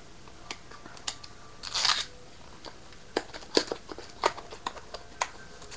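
A trading-card pack wrapper being torn open by hand. There is a short crinkling rip about two seconds in, then a series of sharp crinkles and clicks as the wrapper is pulled apart.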